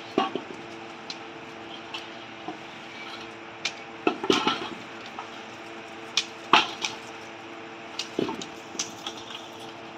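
Small onions being handled and dropped into a steel bowl: scattered knocks and clinks every second or so, a few ringing briefly, over a steady low hum.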